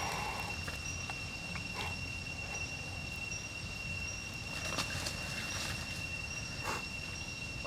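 Forest ambience: a steady, high-pitched insect drone over a low rumble, with a few scattered sharp clicks and crackles from the small wood fire being tended close by.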